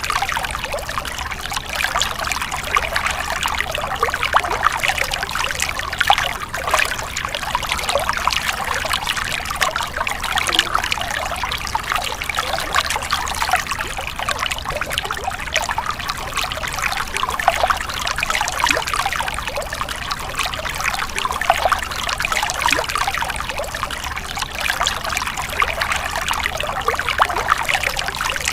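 Small stream of water trickling and splashing steadily, with constant fine bubbling and burbling.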